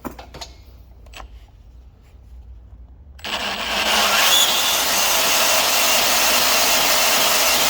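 A few handling clicks, then about three seconds in a Milwaukee M18 FBS85 cordless brushless band saw starts and cuts steadily through steel square hollow section, making a loud steady rasping hiss with a faint high ring.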